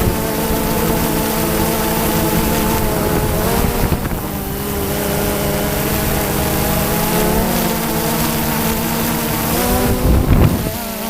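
DJI Phantom 2 quadcopter's motors and propellers humming steadily as it flies, several tones at once, drifting a little in pitch as it manoeuvres. A brief louder rumble comes about ten seconds in.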